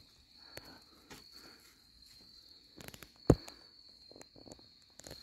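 A cricket trilling steadily in one high, thin tone, with scattered faint clicks and a single sharp knock about three seconds in.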